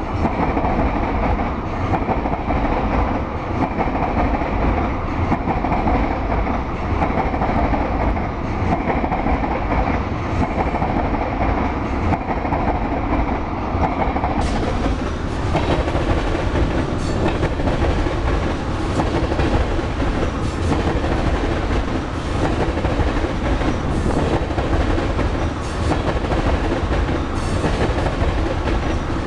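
Loaded crude-oil tank cars of a freight train rolling past close by: a continuous steady rumble of steel wheels on rail, with repeated clicks as the wheels cross rail joints.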